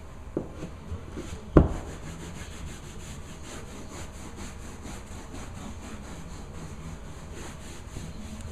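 Quick, even rubbing strokes, about four a second, from stair carpet being scrubbed by hand during cleaning, with one sharp thump about a second and a half in.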